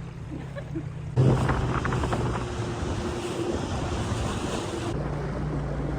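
Small boat's outboard motor running, a steady low hum, under rushing water and wind buffeting the microphone. The rushing noise jumps up sharply about a second in.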